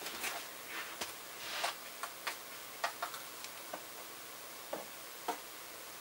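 Scattered light clicks and taps, about a dozen at irregular intervals, from hands working over a tub of ice cubes: dye powder shaken from a small jar and ice pieces shifted about.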